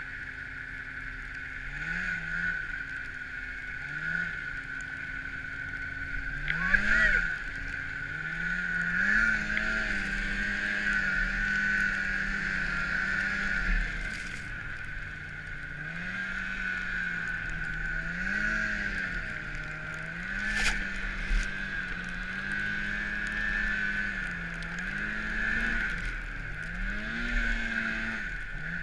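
Snowmobile engine under load in deep snow, its pitch rising and falling again and again as the throttle is worked, over a steady high whine.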